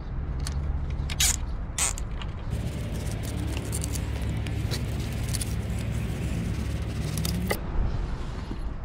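Short scrapes and clicks of fishing gear being handled, over a steady low hum. There are a few sharp scrapes in the first two seconds, then lighter clicks, and a last sharp one near the end.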